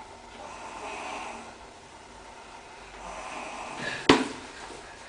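Quiet room with faint rustling, then a single sharp knock about four seconds in.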